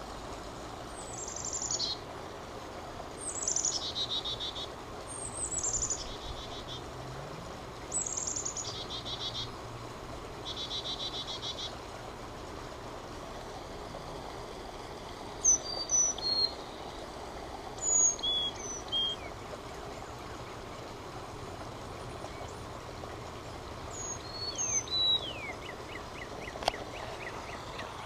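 Carolina chickadee chick-a-dee calls played through an iPhone speaker from the Merlin Bird ID app: a high note sliding down, followed by a run of buzzy 'dee' notes, repeated several times over the first twelve seconds. Later come a few scattered short, high bird notes.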